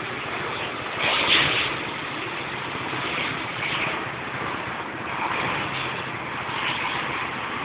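Road traffic noise, with vehicles running and passing and a louder rush about a second in.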